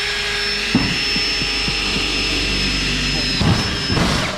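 Ryobi 18V cordless drill running at steady speed as it bores through a sheet-metal panel, a steady motor whine with a high-pitched note above it. From about a second in, the bit scrapes and catches irregularly in the metal, and the drill stops near the end.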